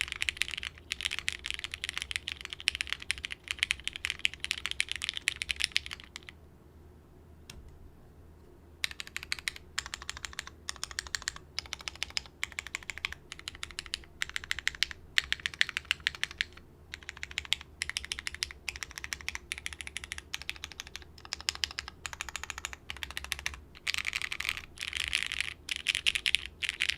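Typing on a plateless, tray-mounted custom mechanical keyboard with lubed Cherry Hyperglide linear switches and GMK keycaps: fast runs of keystrokes with a pause of a few seconds about six seconds in, then bursts of typing with short breaks.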